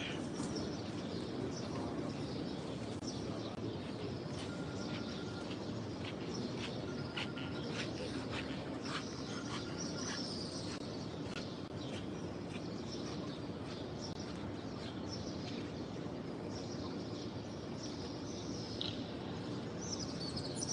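Many small birds chirping, with short high calls scattered throughout, over a steady background noise.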